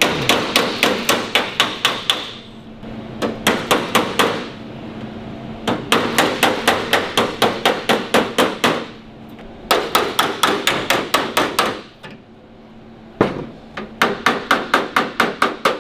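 A hammer rapidly tapping a sheet-steel repair patch on a 1942 Cadillac Fleetwood door, folding the patch's edge round the door's edge. The strikes come in five runs of about five a second, with short pauses between runs.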